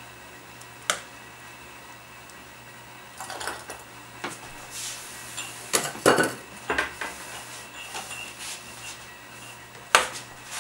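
Kitchen clatter: a metal spoon or ladle clinking and knocking against a stainless steel pot and jars in scattered strikes. The loudest cluster comes about six seconds in, with another sharp clank near the end.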